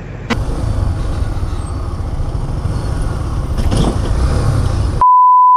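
Motor vehicle engine and road rumble, with a brief rising whine a little before four seconds in. Near the end a steady censor bleep tone cuts in and replaces all other sound.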